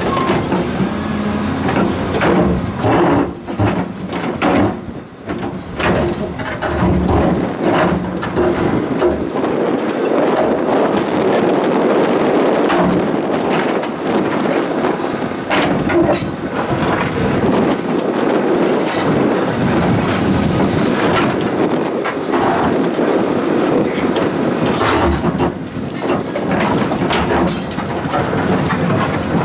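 Komatsu hydraulic excavators running under load while placing rocks, with frequent knocks and scrapes of rock against rock and steel bucket.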